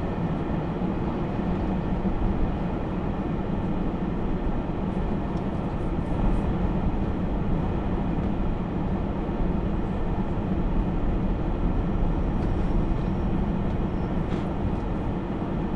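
Steady engine and road noise heard from inside a moving vehicle's cabin, with a low drone that stays even throughout.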